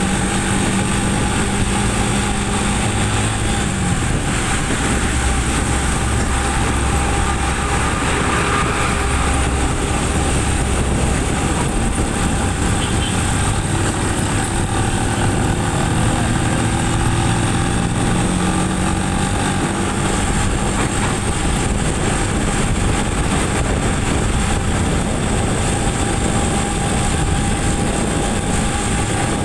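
Motorcycle engine running under way on a wet road, with a steady rush of road and tyre noise; the engine note shifts in pitch a few times.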